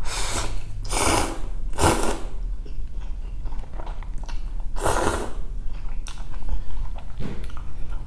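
Close-miked eating of ramen noodles in birria broth: three long slurps in the first two seconds and a fourth about five seconds in, with wet chewing clicks between them.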